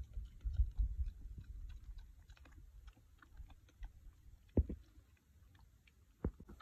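Young wild boar piglet eating, with quick small crunching, clicking chews. A low rumble fills the first second and a half, and two sharper knocks come about two seconds apart in the second half.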